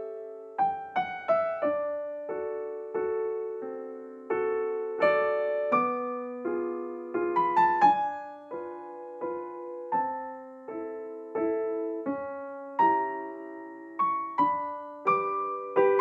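Background music: a slow, gentle solo piano melody, one struck note after another, each fading away before the next.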